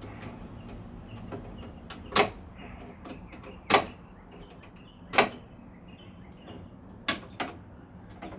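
Sharp clicks and knocks of hand tools and parts being worked inside a car door: three loud ones about a second and a half apart, then two more close together near the end.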